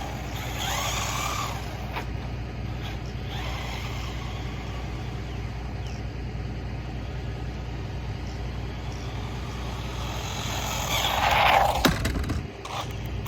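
A stock 1/16-scale brushless RC jeep running on a 2S LiPo, driven up and down a paved street: its motor whine and tyre noise swell as it comes close, loudest about 11 seconds in, with a sharp click just before it fades. A steady low hum runs underneath.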